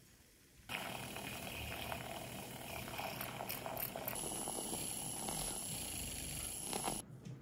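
Handheld electric milk frother whirring in milk in a plastic measuring jug, starting abruptly about a second in and stopping suddenly near the end. About halfway through, a high steady whine joins the whirr as the milk froths.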